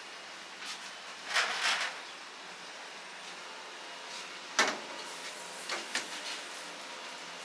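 Cooking equipment being handled at a charcoal chicken grill: a scrape about a second and a half in, then a sharp clack and two lighter knocks, over a steady hiss.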